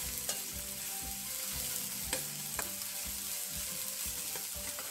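Red onion and garlic sizzling in oil in a non-stick frying pan while a spatula stirs and scrapes them around, with a few sharp clicks of the spatula against the pan.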